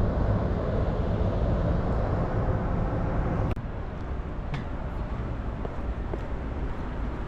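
Steady low rumble of vehicle noise, louder for the first three and a half seconds, then a little quieter after an abrupt change.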